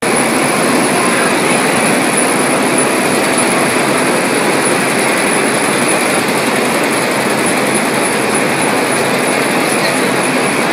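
Steady rushing air noise from a CO2 laser marking machine's fume extraction while it marks, with a faint thin high-pitched whine above it.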